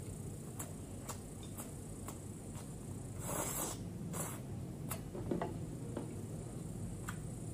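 Close-miked eating sounds: a spoon and chopsticks clicking and scraping in a glass bowl, with scattered sharp clicks and a short rushing scrape about three seconds in, over a low steady hum.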